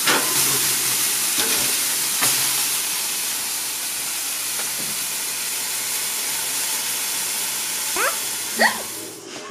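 Burger patties sizzling on a hot grill grate, a steady hiss, with a few sharp clicks of metal tongs in the first couple of seconds as the patties are lifted and stacked. Near the end come two short rising squeaks, then the sizzle cuts off.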